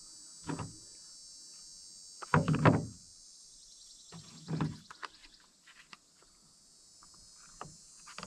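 Hard knocks and clunks from a chainsaw's side cover and bar being handled and fitted back over the chain, with a quick cluster of knocks about two and a half seconds in and single knocks before and after. Insects trill steadily in the background.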